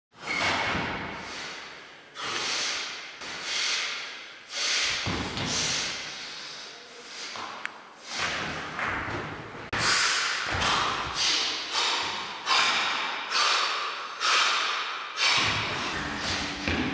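Heavy rope being swung and whipped, a series of sharp swishing strokes with sudden starts, each fading out in the echo of a large, bare room.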